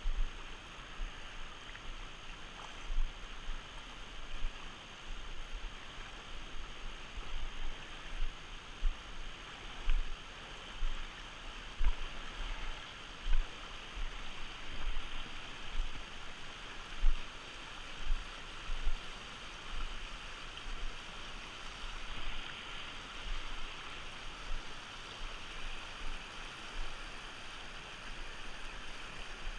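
Steady rush of river water, with many short low bumps on the microphone.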